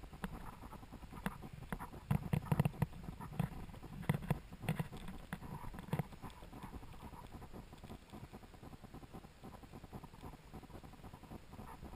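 Footsteps of someone walking on paving stones, with light knocks from handling the camera: irregular thuds and clicks, thickest between about two and six seconds in, then thinning to faint scuffs.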